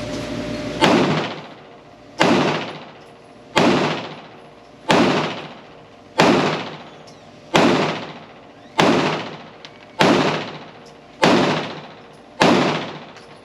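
PSA Dagger Compact 9mm pistol fired in slow, steady succession: ten shots about one every 1.3 seconds, each ringing out for about a second.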